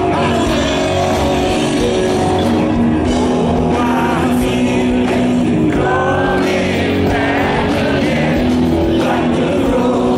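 Rock band playing live in concert, the lead singer singing over the full band, recorded from among the audience.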